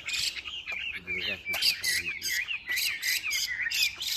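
Fighting songbirds calling hard during a bird fight: a dense, rapid run of short sharp chirps and squeaky gliding notes, several a second.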